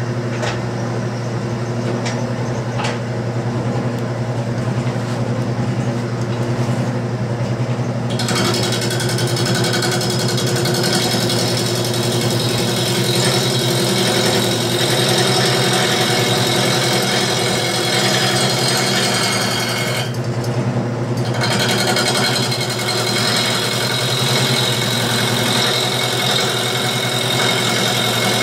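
Wood lathe motor humming steadily as a mulberry bowl blank spins. About a third of the way in a turning tool starts roughing the wet wood, a loud rushing hiss of shavings coming off, which breaks off for about a second later on before the cut resumes.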